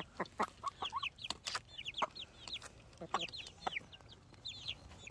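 Baby chicks peeping: many short, high chirps, each falling in pitch, coming in quick runs, with a few short, lower clucks from adult hens among them.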